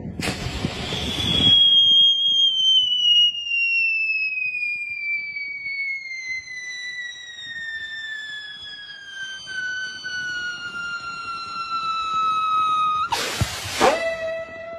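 Whistling firework burning on the ground. A rushing burst as it lights, then a long whistle that slowly falls in pitch for about eleven seconds. A sudden rushing blast comes near the end as it shoots into the air, followed by a lower steady whistle.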